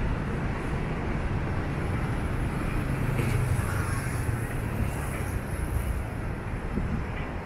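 Road traffic on a city street: a steady hum of passing cars and motorcycles, a little heavier around three to four seconds in.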